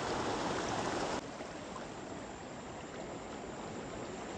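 Steady rushing of river water, which drops to a quieter level about a second in.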